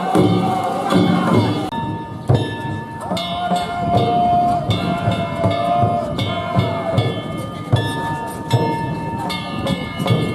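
Danjiri festival music: a taiko drum beaten in a steady rhythm, with metal hand gongs whose ringing tones hang on between strokes.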